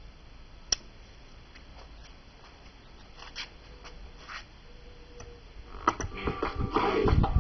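A sharp switch click about a second in, then a quiet pause while the valves of a late-1940s/50s valve battery portable radio warm up on a home-built inverter power supply. Near the end the radio comes to life, its broadcast sound fading up quickly and crackly through the loudspeaker.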